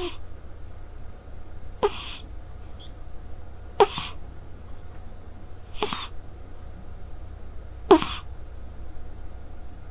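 Scottish Straight cat snoring in its sleep: four short snores about two seconds apart, each with a pitch that falls, over a steady low hum.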